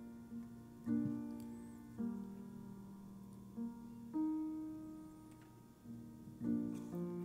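Soft, slow piano chords, struck every second or two and each left to ring and fade.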